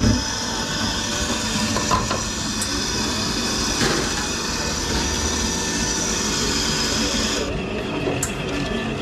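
Espresso grinder motor running as it grinds a dose into the portafilter, a steady whirr that cuts off suddenly about seven and a half seconds in.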